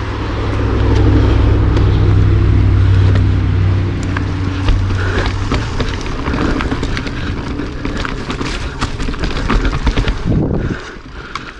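Mountain bike rolling fast down a dirt forest singletrack: a steady low hum from the knobby tyres with wind rushing over the camera microphone, then, from about five seconds in, a run of rattles, clicks and knocks as the bike chatters over rougher ground. It quietens briefly near the end.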